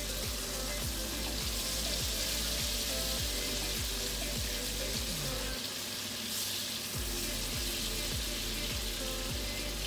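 Pork chops sizzling in hot oil in a frying pan as they are laid in, with steady spattering hiss, over background music with a regular beat.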